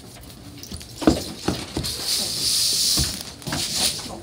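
Two children scuffling: several dull thumps and shuffling footsteps as they grapple and shove each other, with a hissing scrape between about two and three seconds in.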